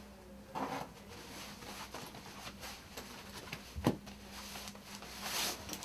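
Rustling and handling of a backpack and a padded camera pouch, with small clicks, a soft thump about four seconds in and a longer rustle near the end.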